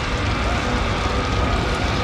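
Layered horror ambience: a steady, dense low rumble and hiss with faint wavering, wail-like tones drifting over it.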